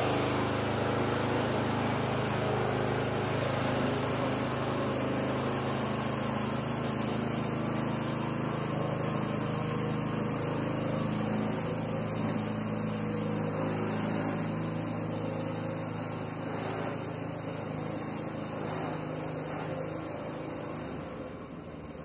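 Predator 212 single-cylinder gasoline engine in a small Farmall tractor running steadily under load while pulling a trailer of round hay bales, gradually growing fainter as it moves away.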